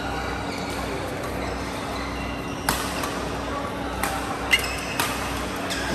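Badminton rally: sharp racket strikes on the shuttlecock, one a little before the middle and then several quick exchanges about half a second apart, with brief high squeaks between them, over a steady hall hum.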